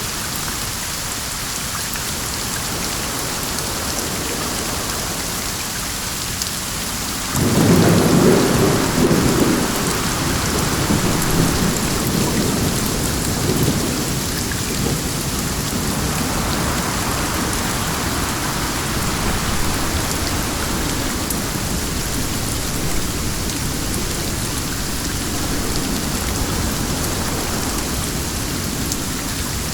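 Steady heavy rain, with a thunderclap about seven seconds in that breaks out suddenly, rumbles low for several seconds and slowly fades back under the rain.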